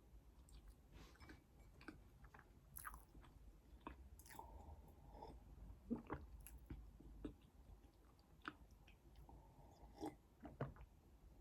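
Close-miked chewing: soft, wet mouth clicks and smacks scattered irregularly, a few louder ones about midway and near the end.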